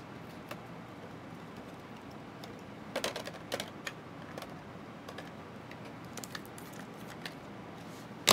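Faint, scattered clicks and taps of plastic card sleeves and a clear hard-plastic card holder being handled as a trading card is slid in, with a sharper click at the very end.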